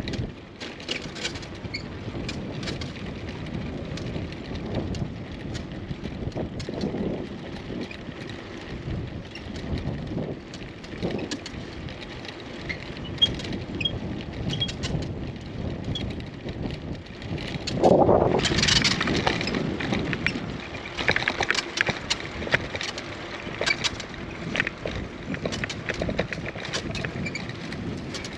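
Bicycle rattling over bumpy paving, with many short knocks and clatters, and wind rushing over the microphone. The clatter gets louder and sharper about 18 seconds in.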